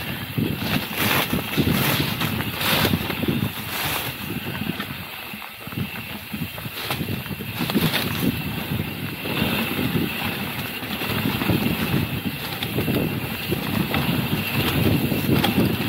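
Mountain bike riding down a trail: wind buffeting the microphone over the rumble and rattle of the bike on rough ground, with a few sharp knocks in the first few seconds.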